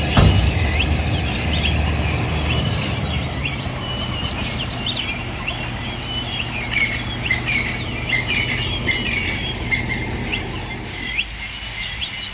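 Many small birds chirping and twittering, with short quick calls overlapping throughout, over a low steady hum that fades out near the end. A single knock right at the start.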